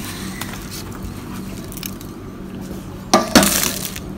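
A hardened salt crust on roasted pork belly being cracked and pried off: a short, loud crackling clatter about three seconds in, from two quick breaks that die away within a second. A low steady hum underneath.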